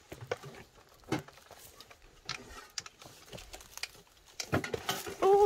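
Footsteps on rocky ground and split firewood knocking and shifting on a loaded wooden A-frame carrier as it is carried, a scatter of small knocks and clicks. Near the end comes a louder, short pitched sound.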